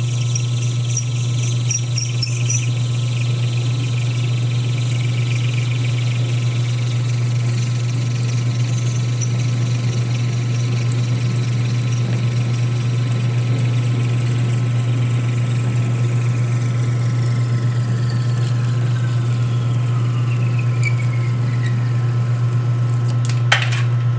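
Metal lathe running with a steady motor hum while a parting tool cuts into the spinning stock, giving a high squeal that slowly falls in pitch during the second half. A single sharp click near the end.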